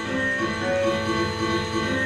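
Live ensemble music: many sustained pitched notes overlapping in a dense, steady texture, with new notes entering every half second or so.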